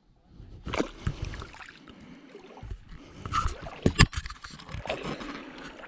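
Water splashing and sloshing as a marron is hauled out of the dam in a bushman's snare on a long pole, with irregular scrapes and a few sharp knocks, the sharpest about four seconds in.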